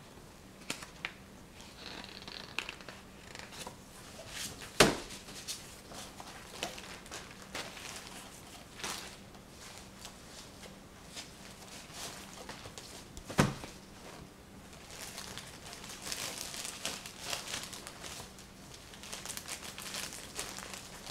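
Handling noises: crinkling and rustling with scattered small clicks, and two sharp knocks, one about five seconds in and a second about thirteen seconds in.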